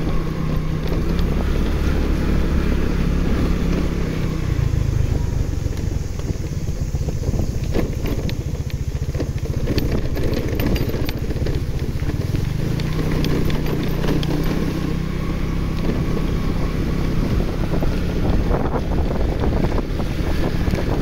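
Motorcycle engine running while riding along a road, with wind buffeting the microphone. The engine note drops about four seconds in and picks up again around thirteen seconds.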